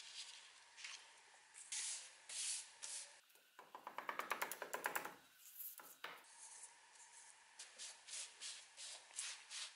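A paper template is pressed and rubbed down by hand and with a cloth onto an old steel saw blade: irregular soft rubbing and rustling strokes. In the middle comes a rapid run of small clicks, about a dozen a second, for a second and a half.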